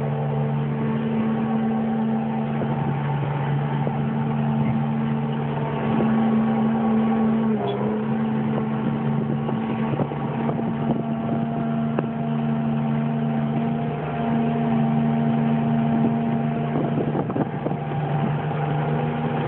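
John Deere 540G skidder's diesel engine running steadily under way, heard from inside the cab, with scattered knocks and rattles.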